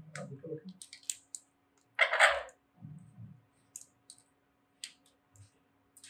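Alexandrine parakeet nibbling at food held in a person's fingers, its beak making scattered small clicks. About two seconds in there is one louder, short noisy burst.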